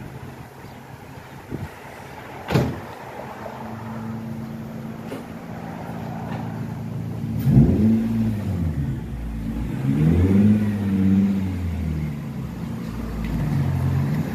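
Infiniti G35's 3.5-litre V6 engine under way, revving up and easing off twice as the car accelerates and slows. A sharp click about two and a half seconds in.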